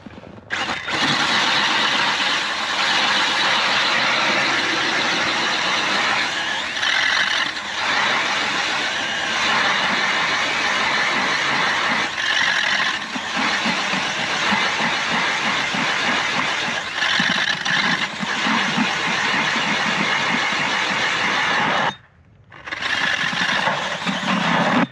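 Drill-powered ice auger boring a hole through lake ice, the drill motor running under load as the spiral blades churn up ice shavings. It stops about 22 seconds in, then runs again briefly near the end.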